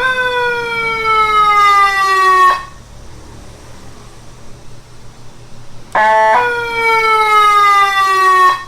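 Motorcycle-mounted electronic siren sounding through twin speakers: two slowly falling tones, each about two and a half seconds long and cut off sharply. The second is preceded by a short steady blast.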